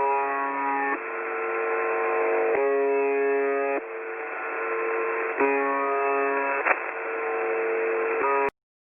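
Shortwave radio reception of UVB-76, 'the buzzer', a buzzing drone in narrow radio-band audio. It shifts between a lower and a higher buzz every second or so and cuts off abruptly near the end.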